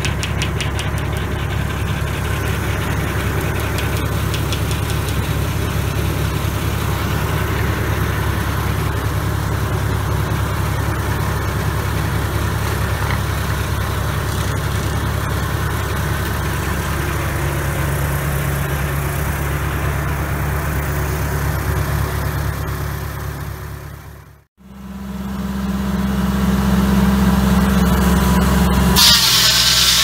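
Engine-driven Foley Belsaw M-14 circle sawmill running steadily with its blade spinning. The sound drops out briefly about two-thirds of the way through. Near the end the blade bites into a yellow pine board, adding a loud high hiss of cutting.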